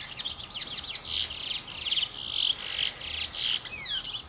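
Birds chirping in a rapid, continuous run of high chirps and trills, with a couple of falling whistles near the end.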